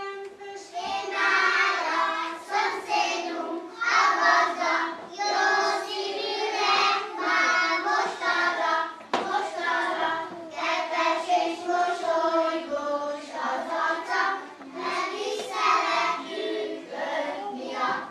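A group of young children singing a song together in unison, in continuous phrases.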